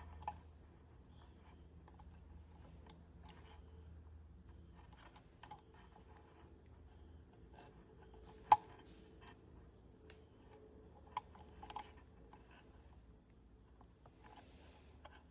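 Scattered small clicks and taps from plastic car-audio parts being handled and fitted: speaker wiring adapter plugs and the speaker bracket. One sharp click comes about eight and a half seconds in, and a few more come a few seconds later.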